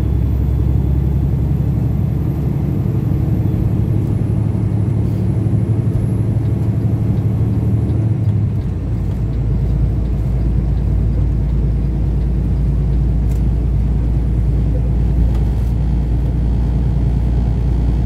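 Kenworth semi truck on the road: a steady low engine drone with road noise. The engine note changes about halfway through.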